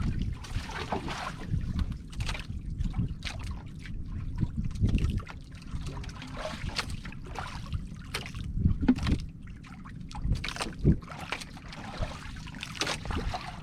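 Water lapping and splashing irregularly against the hull of a small boat, with wind buffeting the microphone as a low rumble.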